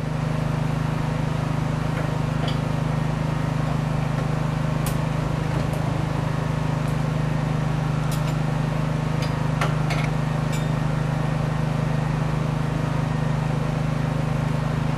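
A steady low mechanical hum at an even level, with a few faint clicks.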